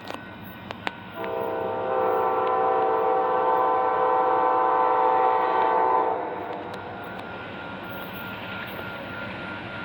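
Amtrak P42DC diesel locomotive's air horn sounding one long, steady multi-note chord for about five seconds, then cutting off. The steady noise of the approaching train follows.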